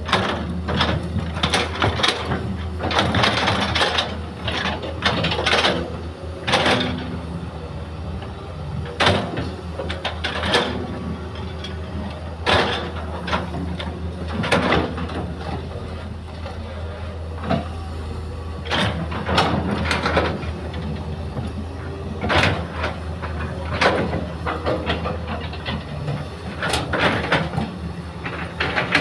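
Hitachi hydraulic excavator's diesel engine running steadily under load while it digs and loads a dump truck, with irregular clanks, scrapes and rushes of soil from the bucket biting into the bank and earth dropping into the steel truck bed.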